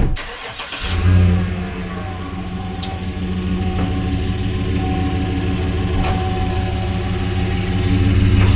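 2015 Chevy Tahoe's 5.3-litre V8 idling steadily, heard from beside the rear wheel, growing a little louder near the end. A short sharp knock right at the start.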